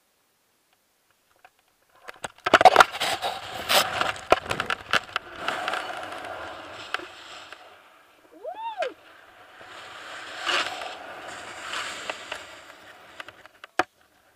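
Rope jump from a 50 m chimney heard through a body-worn action camera. Wind rushes and buffets hard over the microphone from about two seconds in, through the free fall and the swing on the rope, easing and returning. About two-thirds of the way through comes one short, high cry that rises and falls in pitch.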